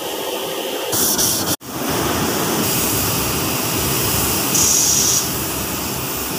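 Steady, loud rushing noise of running woodworking-shop machinery. It breaks off sharply for an instant about a second and a half in, and a brighter hiss rises briefly about three quarters of the way through.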